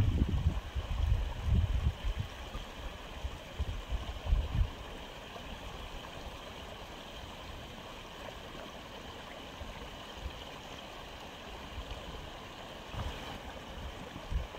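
Aquarium filter running with a steady trickle of water. Irregular low rumbles and bumps come through during the first four or five seconds.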